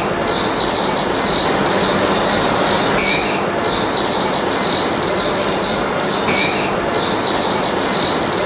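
Backyard birds chirping: a dense, high chatter in runs of about a second with short breaks, and a short rising call repeated about every three seconds over steady background noise.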